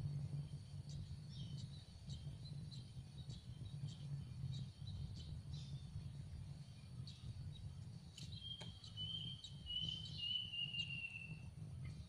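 Yellow-vented bulbul nestlings begging: thin, high, short chirps repeated throughout, then a run of quick calls about eight seconds in that falls slightly in pitch, all over a low steady rumble.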